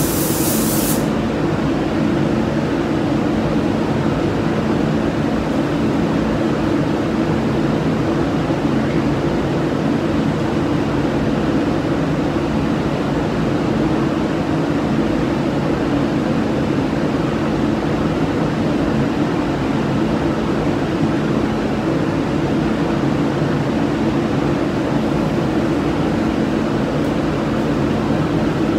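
Spray gun hissing, cutting off about a second in, over the steady drone of a paint spray booth's air extraction fans.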